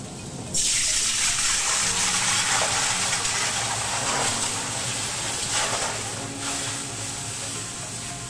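Water hitting a carbon steel skillet: a loud hiss that starts suddenly about half a second in and slowly fades over several seconds.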